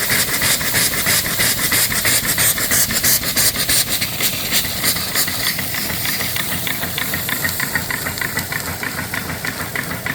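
Single-cylinder steam engine (3-inch bore, 4-inch stroke) running under steam with its cylinder drain cocks open, giving fast, even chuffs of hissing steam as it clears water from the cylinder. The high hiss thins out somewhat in the second half.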